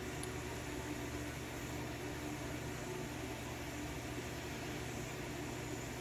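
Steady low hum with a faint hiss, room tone with no clicks or handling sounds.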